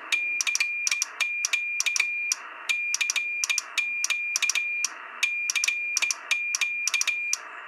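Morse code heard on an AOR AR8600 communications receiver in CW mode: the signal of a homebrew crystal-oscillator transmitter with RF amplifier, keyed with a straight key. A high beep switches on and off in dots and dashes, with a sharp click at each key-down and key-up and receiver hiss in the gaps.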